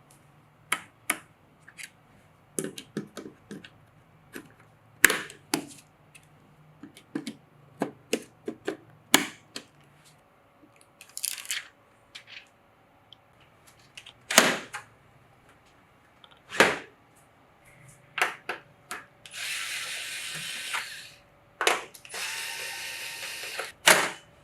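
Computer parts being handled and fitted: scattered sharp clicks and taps of hardware, then two steady whirring, hissing bursts of about a second and a half each near the end.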